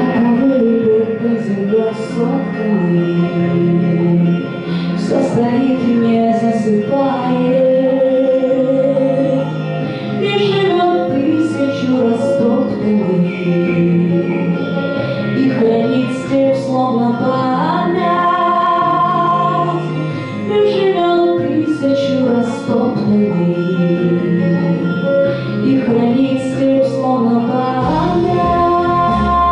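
A woman singing a melodic song over an instrumental accompaniment.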